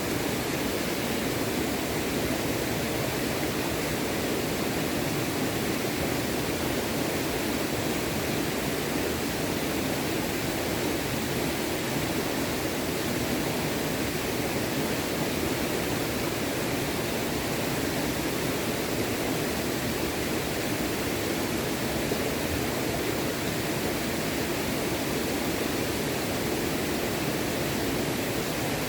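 Small stream flowing steadily, a constant rush of running water.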